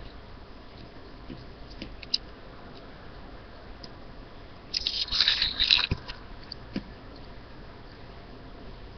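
Pen tracing around a cardboard circle on paper: faint scratching and small taps, with one louder scratch lasting about a second, about five seconds in.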